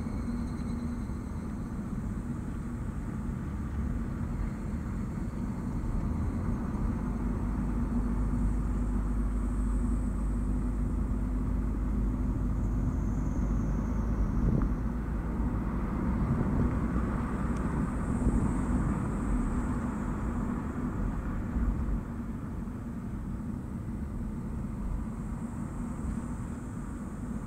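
Nissan Note e-Power under way: steady road and tyre noise with a low drone, the deep rumble heavier through most of the stretch and easing off near the end.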